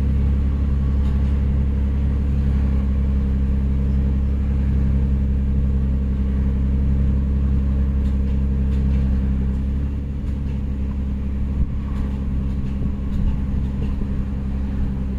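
Nissan Murano's 3.5-litre V6 engine idling steadily at operating temperature, a low even hum.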